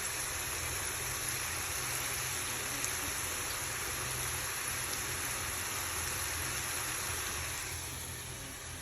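Food frying in hot oil: a steady sizzle with a low rumble beneath it, easing off slightly near the end.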